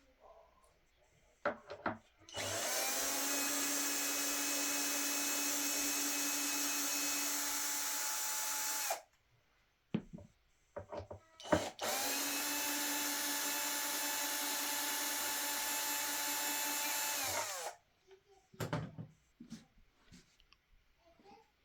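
Electric drill or screwdriver running twice at a steady speed, each run about six seconds long with a brief spin-up and spin-down, with handling knocks and clicks between and after the runs.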